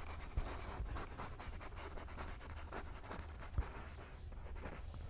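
Paintbrush rubbing and scratching softly across a canvas in many short, repeated strokes, blending wet oil paint.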